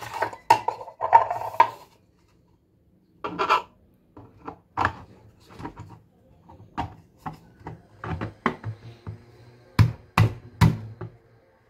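Handling of a white 3D-printed PLA bowl and a plastic water bottle as the bowl is fitted upside down onto the bottle's neck: a series of sharp plastic clicks and knocks, busiest in the first two seconds, with three heavier knocks near the end.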